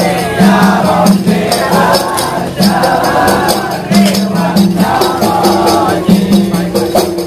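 Hadrah music: several voices chanting a melody together over a steady beat of frame drums with jingling, shaker-like percussion.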